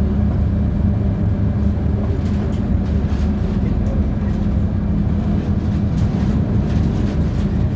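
Inside a LiAZ-5292.71 natural-gas city bus: a steady hum from the engine and drivetrain as the bus runs, with faint rattles from the cabin.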